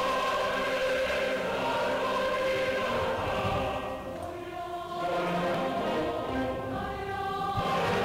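Background choral music: voices singing long held chords, softer for a moment about halfway.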